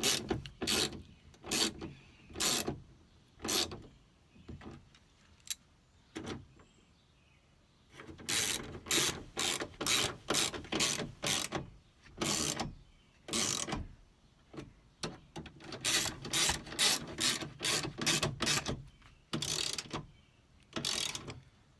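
Hand ratchet clicking in short repeated strokes, about two a second, as Torx screws are snugged down; the strokes stop for a few seconds about four seconds in, then resume in longer runs.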